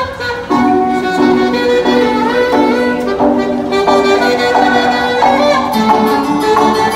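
Saxophone played live, a melody of held notes changing every half second or so, over a recorded backing track of steady chords from a portable speaker.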